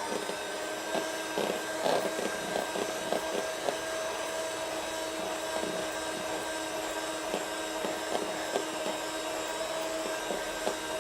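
Electric beater running steadily, whipping chilled whipped-cream ice-cream batter in a bowl, with faint irregular ticks of the beaters against the bowl.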